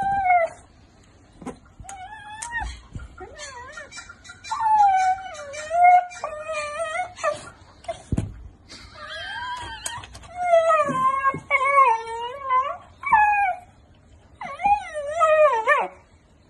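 A long-haired dachshund whining and crying in long, high, wavering whines that slide up and down in pitch. The whines come in several bouts separated by short pauses.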